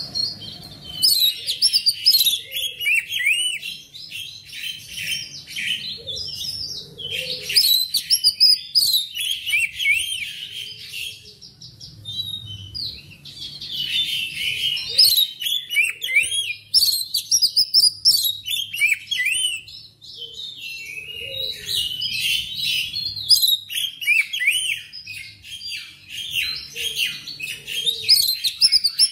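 Oriental magpie-robin (kacer) singing a long run of varied, rapid whistled and chattering phrases, broken by brief pauses every several seconds.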